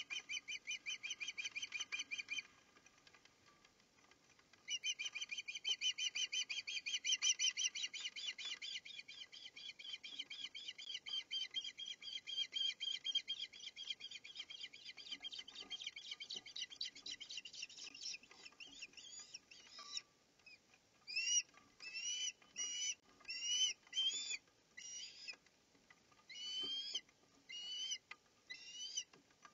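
Osprey calling at the nest: a fast, continuous run of high chirps, a pause of about two seconds, then another long run that after about eighteen seconds breaks into separate rising whistles, about one a second.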